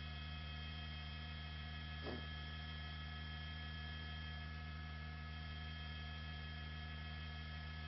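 Steady electrical hum with several constant tones from the helicopter's intercom feed, with a single faint click about two seconds in.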